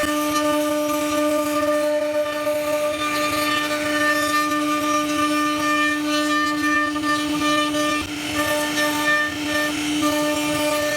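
CNC router spindle running at steady speed while carving wood, giving a constant whine over the hiss of the cut, with a brief dip near the eight-second mark.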